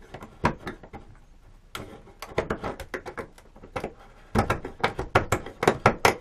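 Craft knife scraping and clicking as it trims hardened five-minute epoxy from a model plane's fuselage joint. Quiet for the first couple of seconds, then scattered strokes, quicker and louder from about four seconds in.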